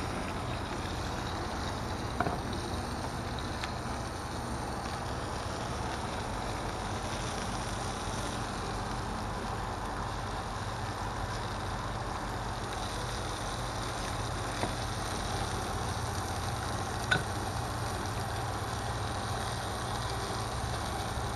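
Single-burner propane camp stove running with a steady hiss while fish fries in oil in a skillet. A couple of light clicks come about two seconds in and again near the end.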